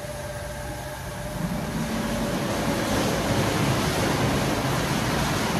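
Automatic car wash equipment working over the car: a steady rushing noise like water spray that builds about a second and a half in and grows louder near the middle.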